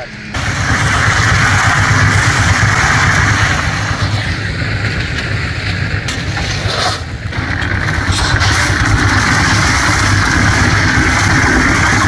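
Concrete mixer running: its engine drones steadily while gravel and cement churn in the turning drum. The sound briefly drops away about seven seconds in.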